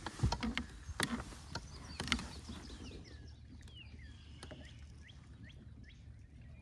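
Several sharp knocks and bumps in a small fishing boat, strongest in the first two seconds or so, followed by a few faint, high chirps that each fall in pitch.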